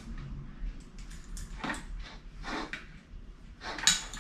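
A tangled string of wire fairy lights being pulled apart by hand, the wire and its little bulbs scraping and ticking: a few short rustles, the loudest near the end.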